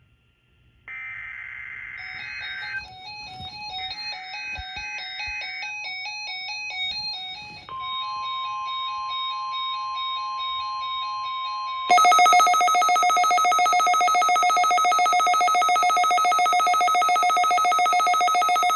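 Emergency alert signals of a NOAA Weather Radio required weekly test. Two short buzzy SAME digital header bursts come with a pattern of short electronic beeps. A steady single-pitch 1050 Hz weather radio warning alarm tone follows for about four seconds, and about twelve seconds in a much louder, rapidly pulsing electronic alert tone starts, the kind of alarm that a weather alert receiver sounds when the signal sets it off.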